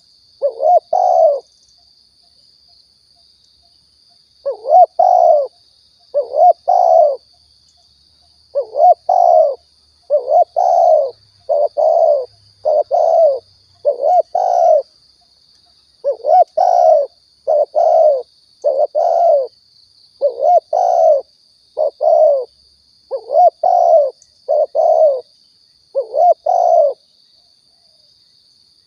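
Spotted dove (tekukur) cooing: short low phrases of two or three coos, repeated about every one to two seconds, with one longer pause near the start. This is a lure-call recording for drawing in doves.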